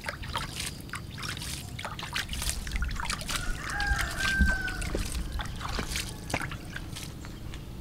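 Rice-washing water splashing and dribbling onto loose soil as it is scooped by hand from a small plastic bucket and sprinkled around a freshly planted sapling: a steady run of small, irregular splashes and drips.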